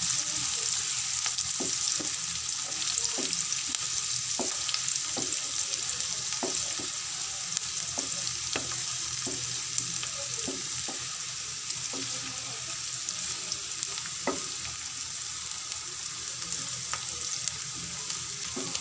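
Chopped onions and green chillies sizzling in hot oil in a pan, being stirred with a wooden spatula. Light knocks and scrapes of the spatula on the pan come every second or so, thinning out after about ten seconds.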